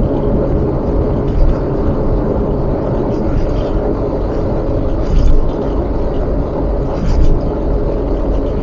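Steady rumble of a car driving, engine and road noise without letup.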